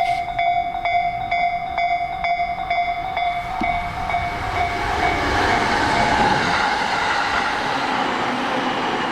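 Level crossing warning bell ringing, an electronic clang repeating about twice a second; about four seconds in, the running noise of a passing train grows louder and covers it.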